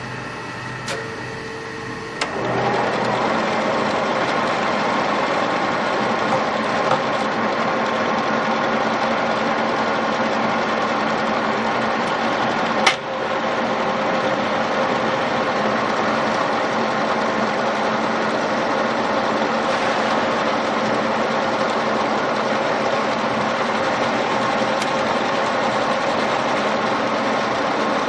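WMW DLZ 450x2000 center lathe running free with an empty chuck, its headstock gearbox giving a steady hum and multi-tone gear whine. It gets noticeably louder about two seconds in, and a single sharp click comes about halfway through.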